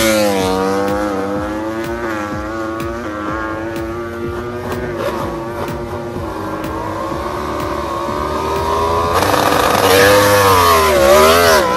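Yamaha YZR-M1 MotoGP bike's inline-four engine running at low revs with a wavering pitch. About nine seconds in it gets louder, and the revs dip and rise as the bike pulls away.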